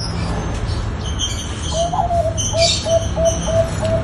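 Zebra dove (perkutut) cooing: a rapid run of short, even notes, about four a second, starting a little under halfway through. High bird chirps sound over it.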